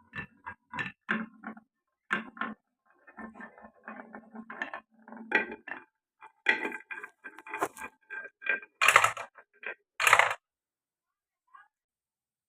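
Marbles running down a wooden marble run: a quick, irregular series of clicks and knocks with short ringing tones as they roll and drop between track pieces, with two louder clatters about nine and ten seconds in.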